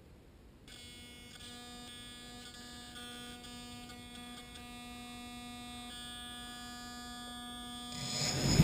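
A steady faint hum from the model aircraft's motor system, starting about a second in. Near the end the propeller motor spins up and the sound rises quickly to a loud rush.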